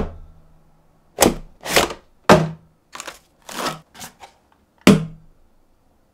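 Cardboard toy box and molded pulp tray being handled during unpacking: a string of about seven short scrapes, taps and knocks as the packaging is opened and the tray is lifted and set down.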